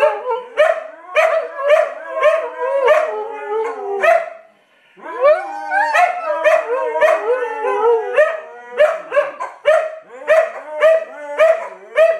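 Several Siberian huskies howling together: overlapping, wavering howls in short pulses. They fall quiet for under a second about four seconds in, then start again.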